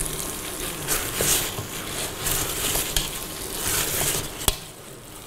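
Rice sizzling in a pan with vegetables and grated tomato as it is stirred, in surges of hiss, with one sharp knock of the utensil near the end.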